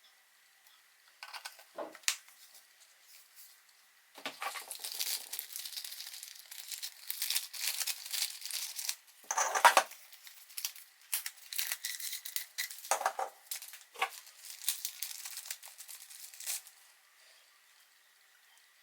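Packaging being unwrapped by hand: irregular crinkling and tearing of wrapping, with a few sharp clicks. It starts about a second in and stops about two seconds before the end.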